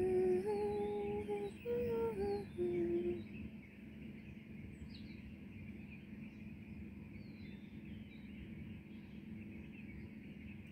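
A person humming a short tune of a few held, stepping notes for about the first three seconds, then scattered short bird chirps over a steady background hiss.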